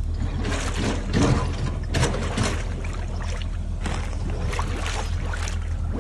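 Liquid splashing and pouring in irregular surges over a steady low hum.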